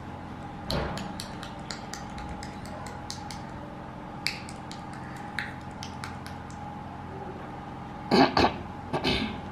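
A toddler eating from a bowl with a plastic fork: scattered small clicks and taps, with two louder knocks near the end, over a steady electrical hum.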